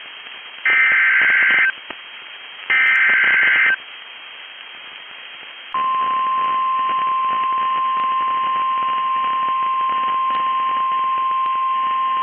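Emergency Alert System broadcast over weather radio: the last two of the three SAME header data bursts, each a harsh one-second warble with about a second between them. About six seconds in, the single steady 1050 Hz weather-radio alert tone begins and holds, announcing a new warning.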